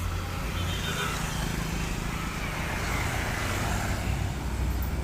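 Engine rumble and road noise of a passing tour bus, steady and low, the traffic noise swelling through the middle and easing off.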